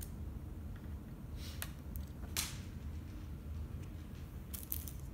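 Cellophane wrapper of a roll of Smarties candies crinkling in a few short rustles as a cat paws at it, with a cluster of crinkles near the end.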